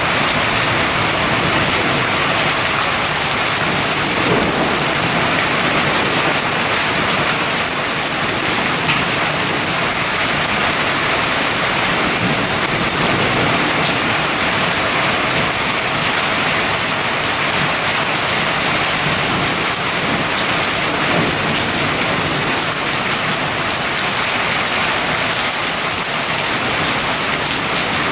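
Heavy rain falling steadily during a thunderstorm, an even hiss with no single clap standing out.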